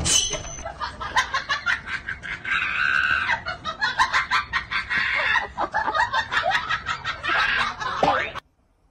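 Rapid clucking animal calls with squawks, a quick run of short sharp sounds that cuts off suddenly near the end.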